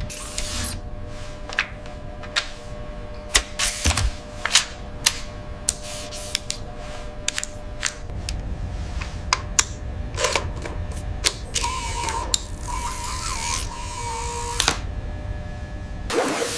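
Sound-designed small mechanical parts: scattered sharp metallic clicks and ticks over a low steady hum. About two-thirds of the way through, a small motor gives a wavering whine for about three seconds, and a louder whirr starts near the end.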